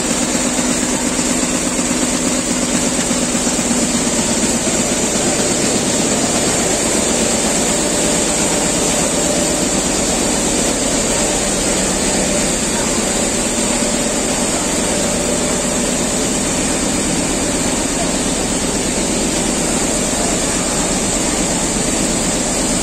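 Richpeace multi-needle shuttle quilting machines running steadily: a dense, fast mechanical clatter from the needle bars stitching, with a steady high hiss over it.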